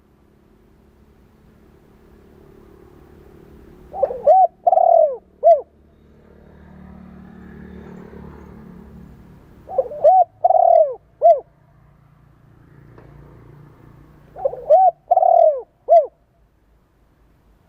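Spotted dove cooing. There are three phrases about five seconds apart, each of four falling notes: two quick ones, a longer one, then a short one. A faint low rumble fills the gaps between phrases.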